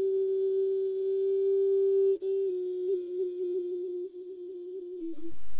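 Solo music from a flute-like wind instrument. It holds one long steady note, breaks briefly about two seconds in, then plays a slightly lower note with small wavering ornaments that fades away near the end.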